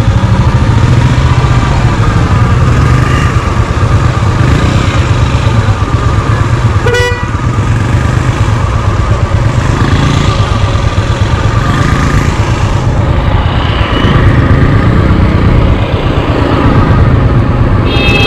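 Royal Enfield motorcycle engine running steadily on the move through traffic. A vehicle horn honks briefly about seven seconds in, and again near the end.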